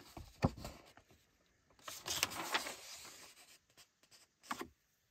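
Pages of a thick paperback catalog, the 950-page Numrich Commercial Firearms Reference Guide #33, being turned by hand. A soft thump comes about half a second in, then paper rustles for about a second and a half, and there is one short rustle near the end.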